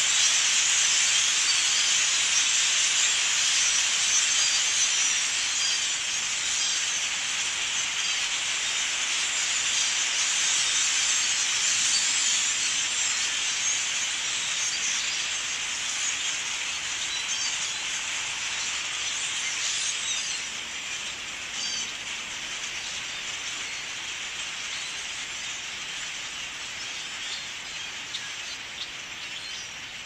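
Din of a huge flock of birds calling all at once: a dense, high-pitched wash of many overlapping calls that slowly fades as the flock thins out overhead.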